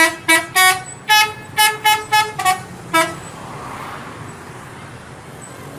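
Telolet musical bus horn playing a quick tune: a run of about nine short toots at changing pitches that ends about three seconds in, followed by steady road noise.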